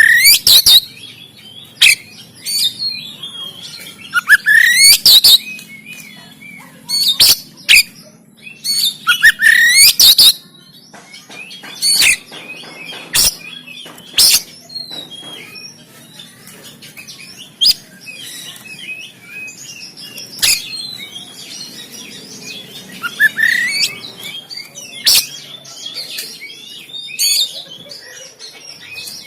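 Oriental magpie-robin singing a harsh, varied song: rising whistled phrases and bursts of sharp, rasping clicks, in loud spurts with short pauses between them.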